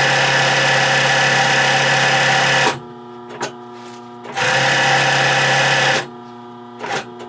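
Sewing machine stitching machine embroidery in two runs, stopping about a third of the way in and again near the end. Between the runs, with the needle stopped, a quieter steady hum continues, and a couple of short clicks come near the end.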